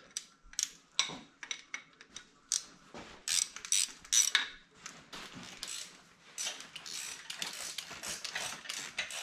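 Ratchet wrench clicking in irregular bursts as the bolts joining the Farmall C's engine to its clutch housing are loosened, to split the tractor.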